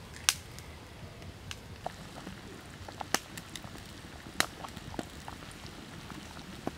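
Liquid bubbling in a wok with a pig's head in it over an open wood fire, with scattered sharp pops and crackles from the boiling and the burning wood. A single sharp click about a third of a second in is the loudest sound.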